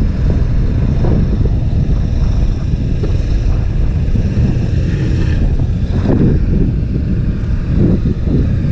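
Bass boat's outboard motor running at low speed as a steady low rumble, with wind buffeting the microphone.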